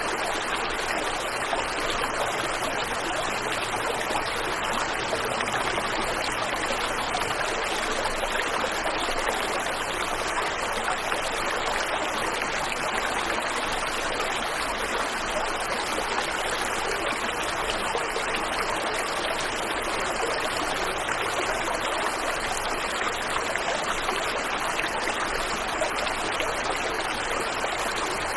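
Waterfall and river water rushing over rocks, a steady, unbroken rush with no change in level.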